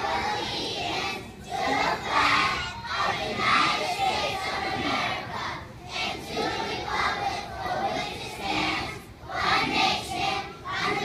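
A large group of young children reciting a pledge in unison, in chanted phrases broken by short pauses.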